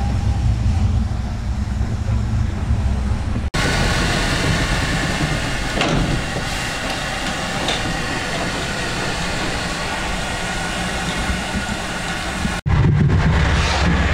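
Steady hiss of escaping steam from BR Standard Class 2 locomotive 78022, lasting most of the time, between stretches of a steady low rumble. The sound changes abruptly about three and a half seconds in and again near the end.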